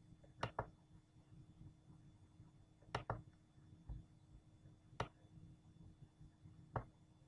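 Near silence: quiet room tone broken by about five short, sharp clicks spaced a second or two apart.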